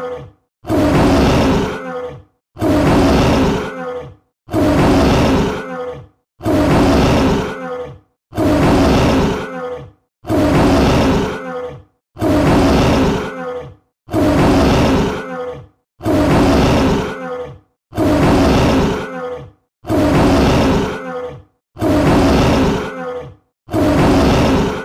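Tiger roar sound effect: the same short roar repeated about every two seconds, about a dozen times, each one lasting about a second and a half with a brief silence between.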